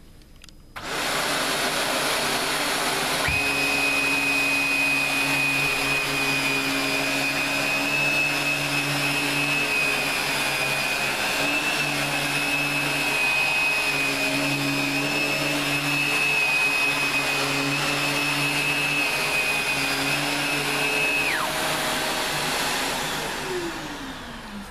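Morphy Richards NLS lift-away bagless upright vacuum cleaner switched on and running steadily as it picks up powder from the floor, with a high whine that comes in a few seconds after start-up. Near the end the whine drops out and the motor winds down with falling pitch as it is switched off.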